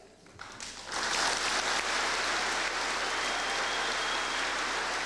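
Large audience in gymnasium bleachers applauding, building up over the first second and then holding steady, with a brief high whistle from the crowd in the middle.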